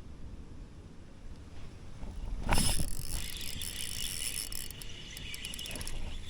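A sudden loud noise about two and a half seconds in, then a fishing reel whirring with fine rapid clicks as line is cranked in.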